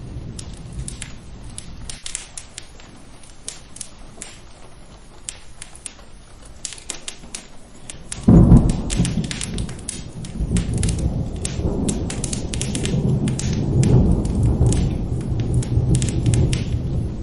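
Steady rain with frequent sharp fireplace crackles. About eight seconds in, a sudden loud thunderclap breaks and rolls on as a deep rumble that swells again near the end.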